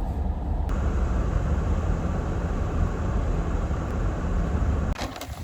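Steady low rumble of a car driving on the road, heard from inside the cabin, cutting off suddenly near the end.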